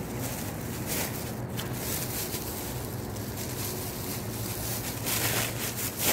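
Steady low background hum with brief gusts of wind noise on the microphone, about a second in and again near the end.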